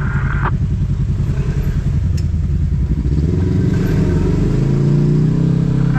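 Side-by-side UTV engine heard from inside the cab, pulsing at low speed on a rocky trail, then revving up about three seconds in and holding the higher pitch.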